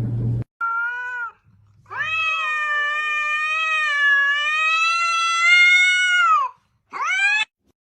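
Domestic cat meowing: a short meow, then one long drawn-out meow lasting about four seconds, then a short rising meow near the end.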